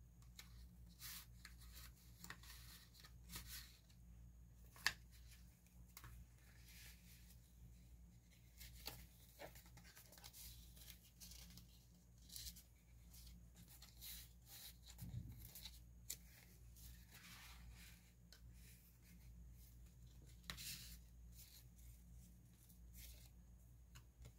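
Faint rustling and light clicks of paper and card being handled: journal pages turned and tags slid in and out of paper pockets, with one sharper tap about five seconds in. A faint steady low hum runs underneath.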